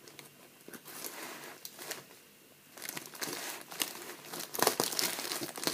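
Parcel packaging crinkling and rustling as it is cut and opened, quieter about two seconds in, then busier with sharp crackles and tearing from about three seconds in.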